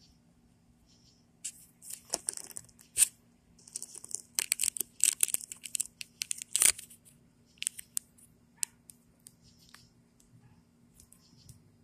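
Rustling and scraping handling noise with sharp clicks, busiest from about a second and a half to seven seconds in, then a few scattered clicks, over a faint low hum.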